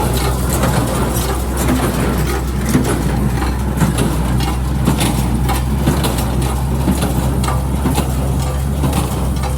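Tractor engine running steadily under a working New Holland 316 square baler, with a stream of mechanical clicks and knocks from the baler over the engine's drone.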